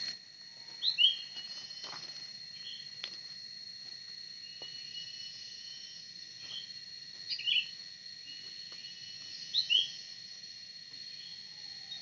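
Steady high-pitched drone of forest insects, with short bird chirps over it, loudest as quick pairs about a second in, at about seven and a half seconds and at about ten seconds.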